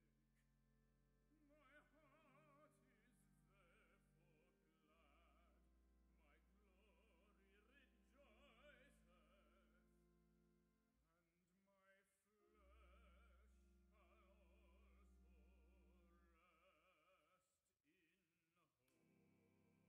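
A solo male voice singing a sacred song with vibrato, accompanied by pipe organ that holds steady chords and, twice, long low pedal notes. The recording is faint.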